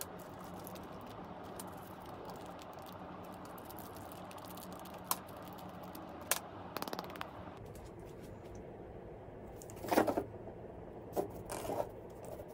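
Small plastic parts bags crinkling and brass pen-kit tubes clicking as they are handled, with a louder clatter about ten seconds in and a few more clicks just after as the tubes and resin pen blank are set down on the workbench. A steady low hum runs underneath.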